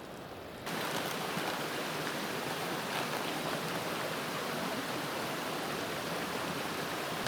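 Steady rush of flowing water, a creek or waterfall, cutting in suddenly just under a second in and then holding even. Before that, a quieter steady hiss.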